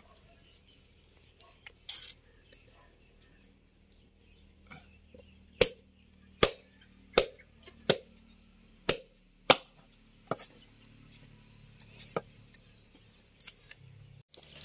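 Cleaver chopping the fins off a large scaled catla fish against a wooden board: about ten sharp, separate knocks, most of them close together between five and ten seconds in.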